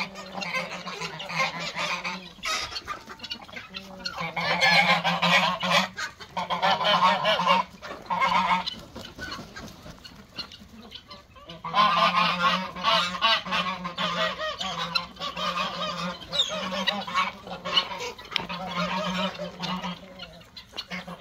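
A mixed farmyard poultry flock calling loudly in repeated bouts of a second or two each, with a quieter stretch of a couple of seconds near the middle.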